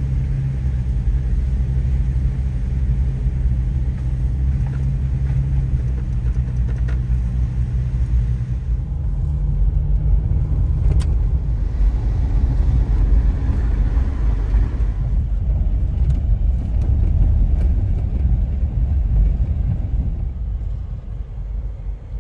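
Motor vehicle running and driving: a steady low engine hum and road rumble. The sound changes about nine seconds in and turns to a rougher, noisier rumble of tyres on a rough road, heard from inside the vehicle.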